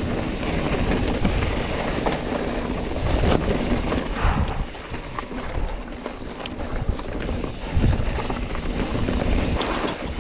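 Mountain bike being ridden over a rocky dirt trail: tyre noise with scattered rattles and knocks from the bike, and wind buffeting the microphone.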